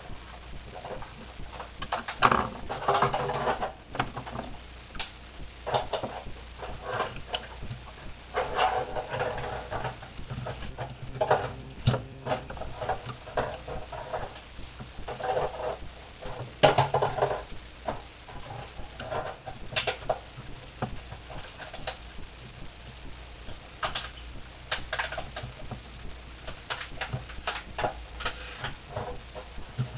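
Irregular clicks, taps and light knocks of small parts being handled, over a steady low hum.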